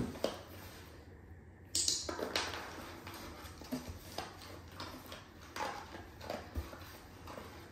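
Dog nosing and rooting through a cardboard food box: irregular rustling, scraping and light knocking of cardboard and paper, with a sharper knock about two seconds in.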